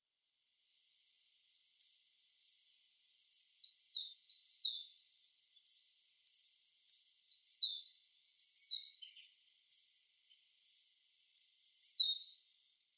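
Hawfinch giving a string of short, sharp, high call notes, each sliding down in pitch, some coming in quick pairs, starting about a second in and stopping near the end.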